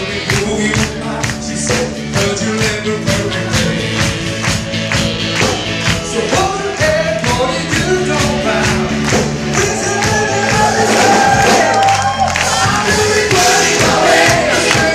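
Live band music with singing over a steady beat, the audience clapping along.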